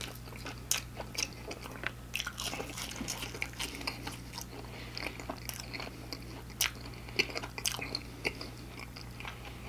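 Chewing of crispy battered fried food, with irregular crunches all the way through, over a faint steady low hum.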